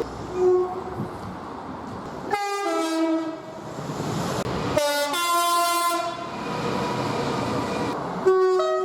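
Train horns sounding one after another over the noise of moving trains: two-tone blasts, each stepping from a higher note to a lower one. A short blast comes near the start, then longer ones about two and a half seconds in, about five seconds in and near the end. The sound jumps abruptly between them, as recordings spliced together.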